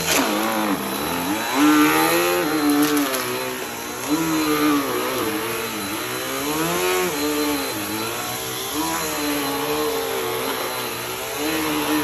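Bagless upright vacuum cleaner running on carpet, its motor pitch wavering up and down with each push-and-pull stroke, with a few sharp crunches of debris being sucked up.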